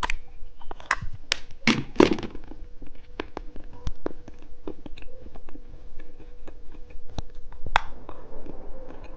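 Hands handling billiard-ball chocolates: scattered light taps and clicks, with a few louder rustles about two seconds in.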